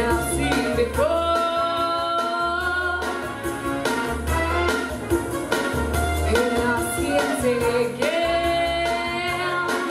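A young woman singing into a microphone over recorded backing music with a bass line, holding long notes about a second in and again near the end.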